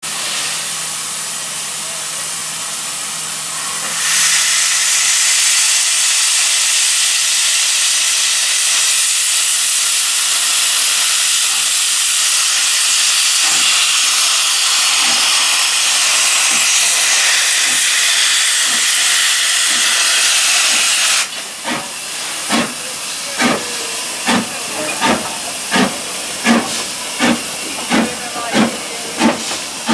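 0-6-0 saddle-tank steam locomotive starting away: a steady hiss of steam that grows much louder about four seconds in as steam blasts from the cylinder drain cocks. About two-thirds of the way through the hiss stops abruptly and the exhaust beats take over, just over one chuff a second and quickening as the engine picks up speed.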